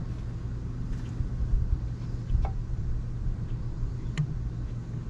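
Steady low mechanical hum and rumble, with two or three faint clicks.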